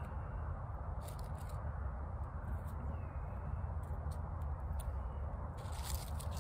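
Campfire crackling with a few sharp pops about a second in and a cluster near the end, over a steady low outdoor rumble.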